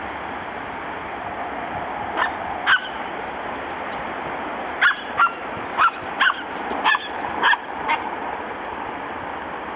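Bearded collie puppy yapping in play: two short, high yips a couple of seconds in, then a quick run of seven more between about five and eight seconds, over a steady background hiss.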